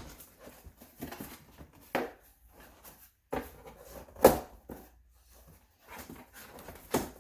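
Five or so separate knocks and bumps spread over several seconds in a small room, with quiet between them.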